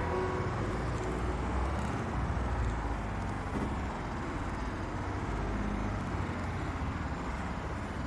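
City road traffic going by, a steady low rumble.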